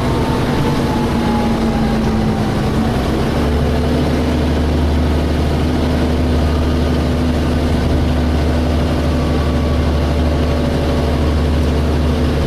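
DAF SB220 bus engine running under way, heard from inside the saloon, with the whining 'hoovering' note these buses are known for. The whine falls slowly over the first couple of seconds; about three seconds in the note steps down and a deeper drone takes over.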